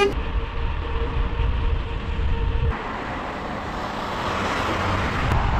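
Road traffic noise with wind on the microphone of a bike-mounted camera. A steady hum runs for the first two and a half seconds. The sound then turns into a rushing haze of wind and passing cars that grows louder toward the end.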